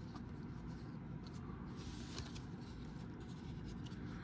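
Faint rustling of trading cards being handled and flipped through by hand.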